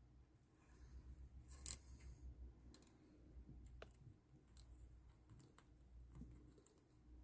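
Faint scissors snipping plastic packaging tabs and tape, a few scattered snips and clicks with one louder, sharp snip nearly two seconds in.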